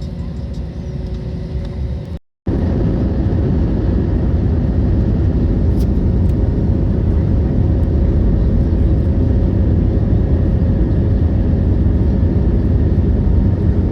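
Airliner jet engines and airflow heard inside the passenger cabin: a steady low rumble, broken by a brief silence about two seconds in, after which it is louder.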